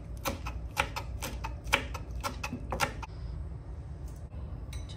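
Kitchen knife chopping fresh herbs on a wooden cutting board: quick, even blade knocks on the wood, about four a second, stopping about three seconds in.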